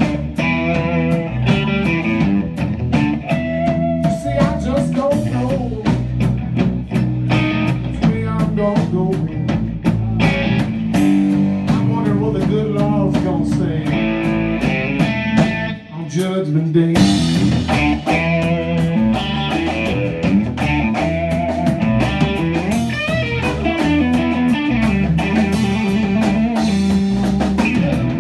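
Live blues band playing: electric guitar over bass guitar and drum kit. The music drops out briefly about 16 seconds in, then comes back in with a cymbal crash.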